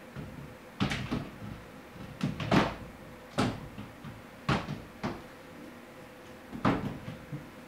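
Wooden drawer of a newly assembled flat-pack chest of drawers knocking and bumping against the frame in about nine irregular knocks as it is pushed in: the drawer will not slide home.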